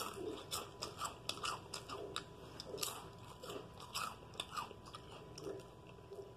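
Wavy potato chips crunching as a person bites and chews them, an irregular run of crisp crackles close to the microphone.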